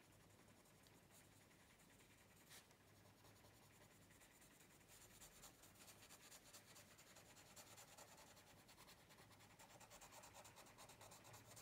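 Faint scratching of a coloured pencil shading across a colouring-book page, a little louder from about five seconds in.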